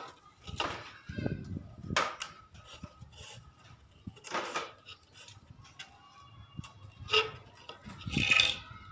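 Thin cage bars clicking and rustling as they are handled and pushed into the drilled holes of a wooden bird-cage frame, with a louder snip of scissors near the end.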